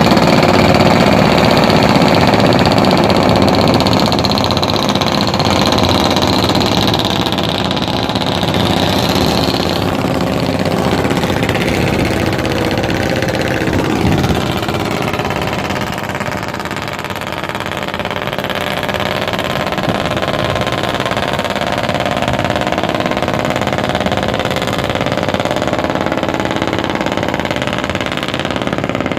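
Small fishing boat's engine running steadily, with a high whine in it that fades out about ten seconds in.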